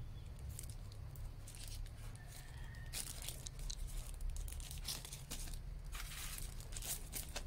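Crinkling and rustling of the white wrapping sleeve as a clear phone case is pulled out of it and the wrap is handled, in many short irregular crackles over a low steady hum.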